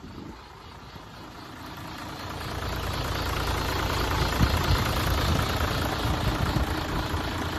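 Hino J08C inline-six diesel engine idling with a steady clatter, growing louder about two seconds in and then holding steady.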